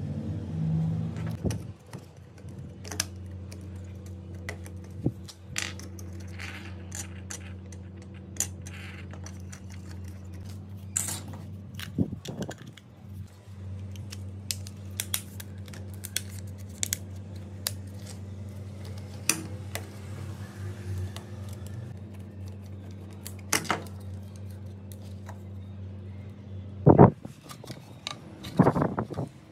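Small plastic clicks and taps as a cassette tape's plastic shell is handled and turned over by hand, over a steady low hum. Two louder knocks come near the end.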